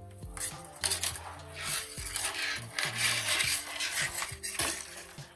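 Light clinking and rustling of small hard objects being handled and moved about, with scattered small clicks.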